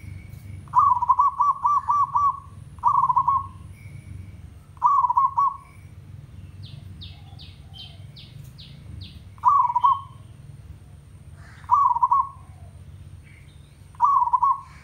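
Zebra dove (merbok / perkutut) cooing its territorial 'tandang' call: six rolling runs of quick staccato coos. The first run is the longest, about eight notes, and the rest are shorter bursts a few seconds apart. In the middle comes a separate, faster series of about ten higher short notes, over a low steady rumble.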